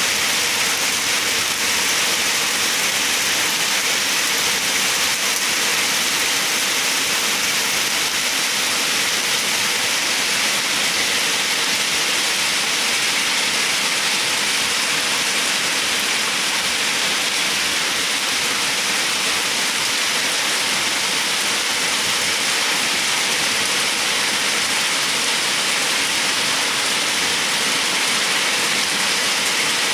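Rain falling steadily: an even, unbroken hiss of rain.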